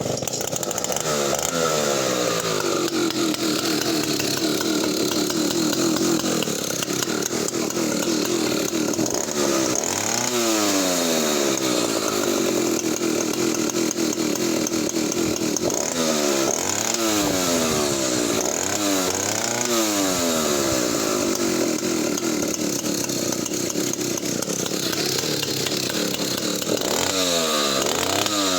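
Solo 60142 106cc two-stroke chainsaw engine catching from a pull start after a month unused. It runs steadily and is blipped up and down in revs several times: near the start, about ten seconds in, in a cluster around sixteen to twenty seconds, and again near the end.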